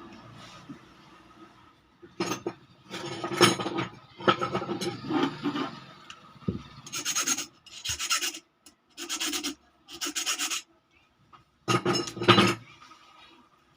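Repeated hand scraping or rasping strokes, about eight of them, each half a second to a second long with short pauses between.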